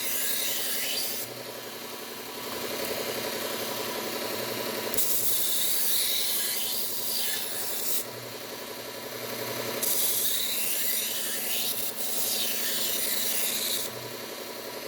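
Knife blades being ground on a Bucktool belt sharpener running at slow speed. The abrasive belt rasps against the steel in passes of about three to four seconds each, three of them, over the machine's steady motor hum.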